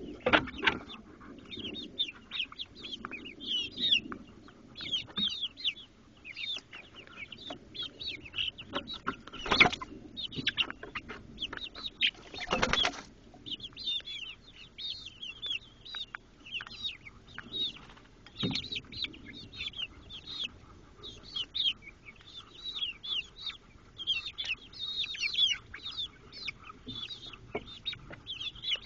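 A flock of hens chirping and trilling softly with many short high peeps as they peck at fruit, with scattered sharp taps and a brief rush of noise about twelve seconds in.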